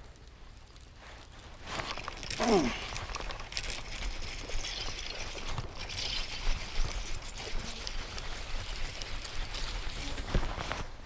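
Dry grass and clothing rustling with scattered knocks and scuffs on the head-mounted mic as the angler moves through the grassy bank while fighting a hooked bass. A short falling squeak about two seconds in.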